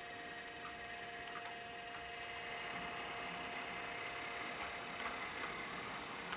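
Model train pulled by a model class 112 electric locomotive rolling past, a steady hum with a few light clicks of wheels over rail joints, a little louder from about halfway through.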